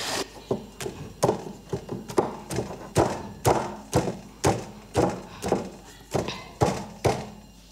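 A pestle pounding the end of a pandanus root against a tabletop, crushing it into a fibrous brush: a steady run of dull thuds, about two a second.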